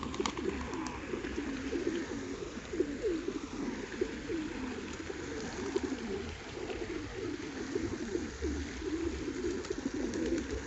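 A flock of pigeons cooing, many low calls overlapping without a break.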